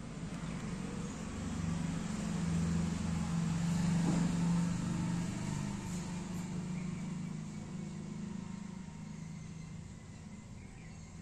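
A motor vehicle's engine running in the background as it passes, its low hum growing louder to about four seconds in and then fading away.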